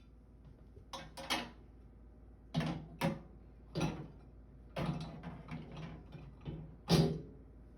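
Irregular knocks and clunks, about ten in several seconds, the loudest near the end, from things being handled and set down while a microwave is cleaned out.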